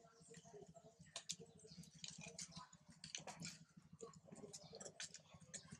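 Faint scattered clicks and crackles of dry leaf litter and grit as macaques move and handle things on the ground.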